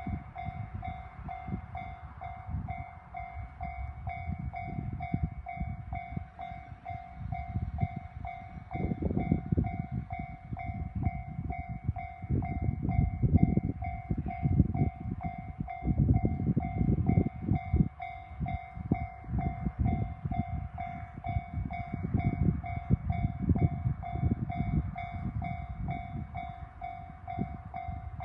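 Japanese level-crossing warning bell ringing as a steady, fast repeating ding, while a train passes over the crossing with a low rumble and clatter of wheels that swells about nine seconds in and is loudest midway.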